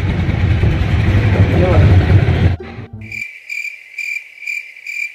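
Loud low rumble of a vehicle on the move, which cuts off about two and a half seconds in. It is followed by an evenly repeating cricket chirp, about three chirps a second, over otherwise dead silence: the stock cricket sound effect for an awkward pause.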